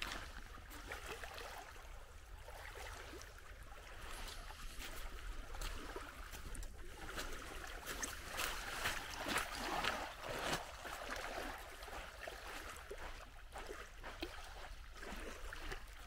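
Small waves lapping and splashing at the edge of shallow, stony water on the Gulf of Finland shore, a little louder about halfway through. Underneath is a steady low rumble.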